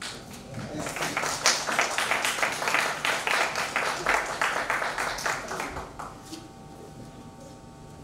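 Audience applauding, a dense patter of many hands that fades out about six seconds in. It gives way to a faint steady hum of a few level tones.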